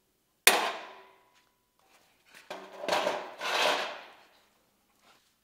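ToughBuilt folding metal sawhorse being handled and set up on a concrete floor. About half a second in there is a single sharp clack that rings briefly. From about two and a half seconds a second, longer stretch of metal clattering and scraping follows.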